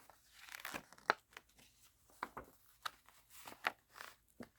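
Paper instruction manual being handled and its pages turned: a series of short, irregular paper rustles and crackles with a few sharp clicks.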